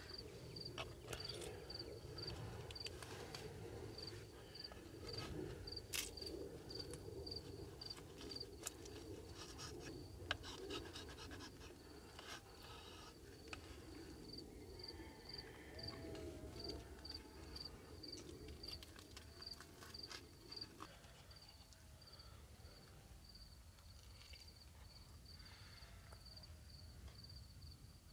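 A cricket chirping steadily, short high chirps at about two a second. Under it, in the first two-thirds, a low steady rushing noise with scattered clicks and taps, which cuts off suddenly.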